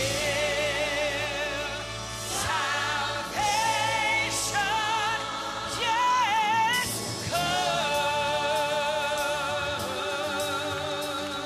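A woman's solo gospel singing into a microphone, with long held notes and a wide vibrato, over a musical accompaniment. A few sharp hits sound in the second half.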